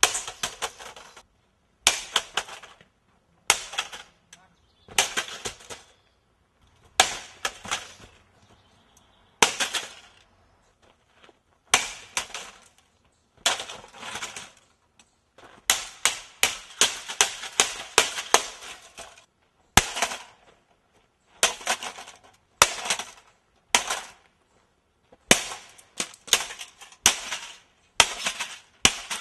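Aluminum baseball bat repeatedly smashing plastic and metal objects: sharp cracking hits, each followed by a rattling clatter of breaking pieces, coming in quick runs every second or two.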